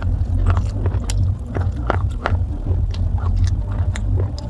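Close-miked crunching and cracking of baked clay pot pieces being bitten and chewed: irregular sharp crunches, several a second, over a steady low rumble.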